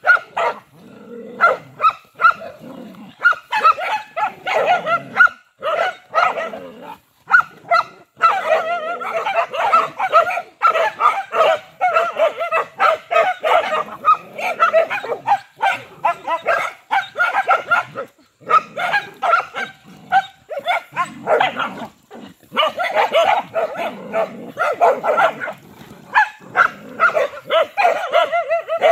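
A pack of dogs barking in a nonstop, overlapping chorus, several at once, with only brief pauses: agitated barking at a python they have surrounded.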